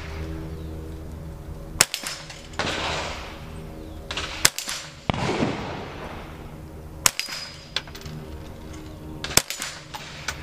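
Four shots from a CBC 7022 .22LR semi-automatic rifle, two to three seconds apart, each hitting a steel paddle of a dueling tree target.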